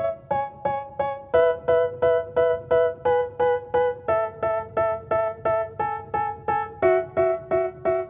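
Background music: a keyboard playing short, evenly spaced notes, about two or three a second, in a repeating melody.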